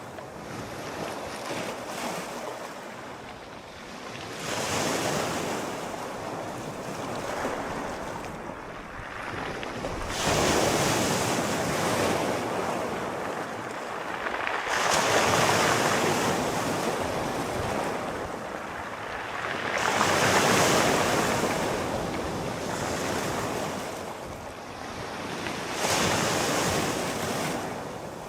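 Sea waves breaking and washing on a shore, each swell building and falling away about every five to six seconds, with a steady wash of surf between them.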